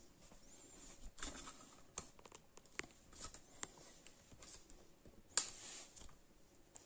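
Faint, scattered clicks and light knocks from a ceramic toilet cistern being lowered and set onto the toilet bowl, its mounting bolts touching the bowl. The sharpest knock comes a little after five seconds in.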